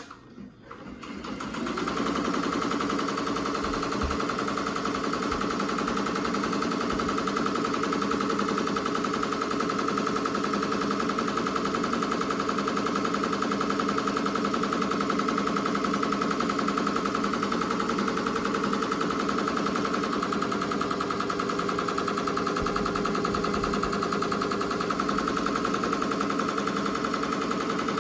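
Ricoma MT-2002-8S multi-needle embroidery machine starting up about a second in, then stitching steadily at a rapid, even rate.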